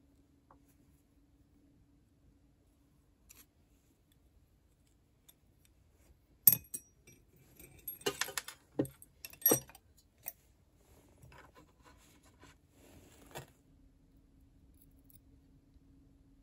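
Metal tools and an aluminium pipe clinking and clattering as they are handled and set down on the workbench. A sharp clink comes about six and a half seconds in, a short jangling clatter follows around eight to ten seconds, and a last clink comes near thirteen seconds, over a faint steady hum.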